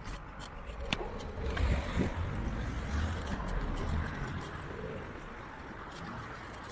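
Outdoor road noise from traffic, with a low rumble that swells from about one and a half to four seconds in and a few sharp clicks, the clearest about a second in.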